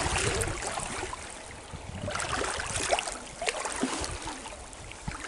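Water trickling and splashing, with scattered small knocks and rustles.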